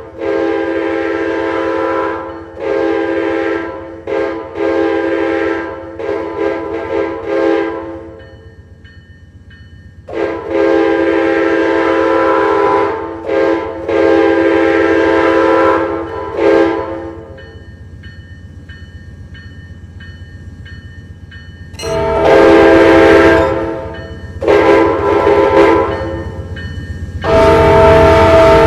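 Amtrak locomotive's multi-chime air horn played in a long run of blasts, long and short, in three runs with quieter gaps between. A steady low rumble runs underneath.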